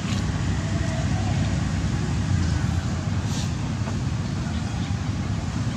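Steady low rumbling outdoor background noise, with a few faint brief ticks and hisses above it.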